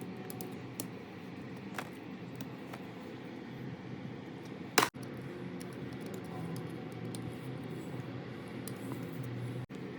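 A steady low hum with a few light clicks, and one sharp click or knock about five seconds in.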